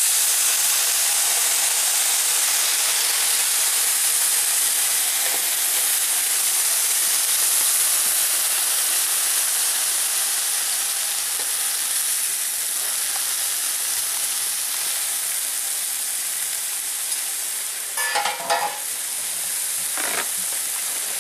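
Swordfish steaks sizzling on an electric grill plate, a steady hiss as the dry side of the plate browns the fish. A short clatter of knocks comes near the end.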